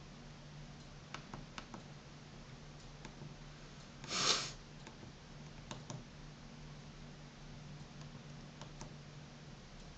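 Scattered soft clicks of the keys on a FRITZ!Fon MT-F cordless phone handset, pressed one by one to move through its menus. A brief loud hiss comes about four seconds in, and a steady low hum runs underneath.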